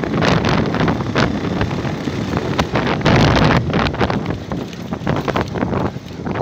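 Wind buffeting the microphone of a moving motorcycle, with the motorcycle's running and road noise underneath. The loudness surges and dips unevenly.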